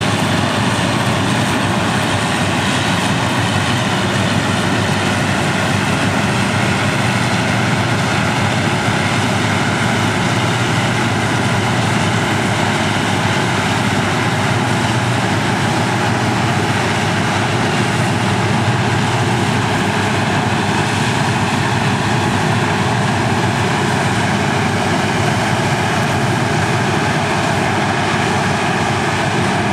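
New Holland FX450 self-propelled forage harvester working at full load, its engine and chopping and blowing gear running loud and steady while it cuts wholecrop and blows it into a trailer.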